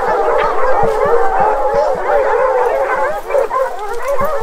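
A pack of bear hounds baying together, many howling voices overlapping without a break: the dogs bayed up on a bear that has stayed on the ground instead of climbing a tree.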